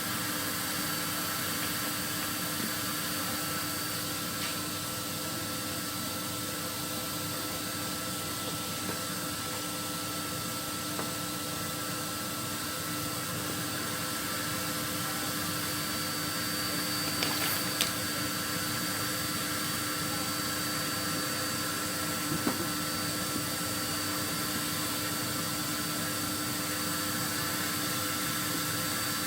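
A vacuum cleaner motor running steadily, with a constant whine, and a few light knocks about two-thirds of the way through.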